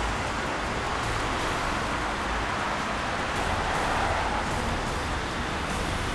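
Steady city traffic noise: an even wash of sound with a low rumble and no distinct events.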